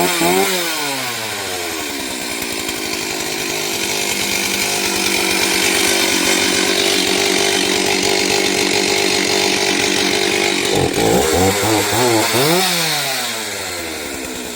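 Chainsaw engine revving up and down, then running at a steady high speed for several seconds. Around two-thirds of the way through it revs up and down again, then eases back toward idle.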